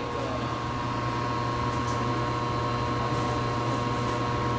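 Steady hum of a kitchen appliance fan running, with a constant tone over an even whir.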